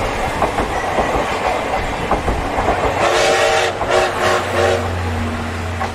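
Passenger coaches rolling past close by, their wheels clattering over the rail joints. About three seconds in, the train's whistle sounds in four or five short blasts.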